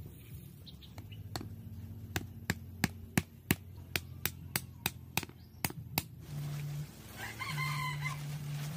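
A wooden stake being driven into the soil with about a dozen sharp knocks, roughly two a second, which stop about six seconds in. Near the end a rooster crows once.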